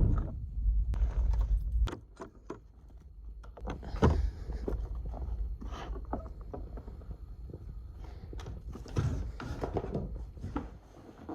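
Scattered clicks, light knocks and rustling of small objects being handled, over a low rumble that fades about two seconds in; the loudest knock comes about four seconds in.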